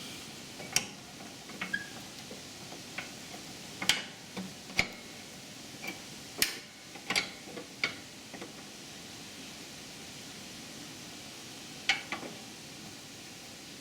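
Scattered sharp clicks and knocks of hand tools and chain hardware being handled while working on a ride-on mower's deck height chain, a dozen or so irregular strikes over a faint steady hiss.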